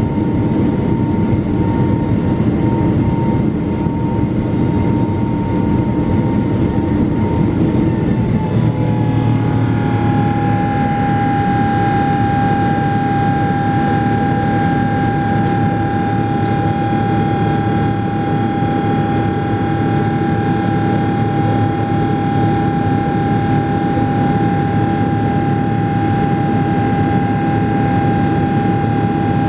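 Boeing 777-300 turbofan engines and airflow heard from inside the cabin over the wing during climb-out: a steady loud rush with a fan whine. About nine seconds in, the whine drops in pitch and then holds steady, the sign of thrust being cut back from takeoff to climb power.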